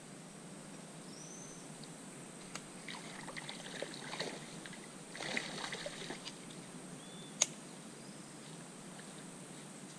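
Quiet marsh ambience with soft crackling and trickling of shallow water in two short spells, a few faint high chirps, and one sharp click near the end.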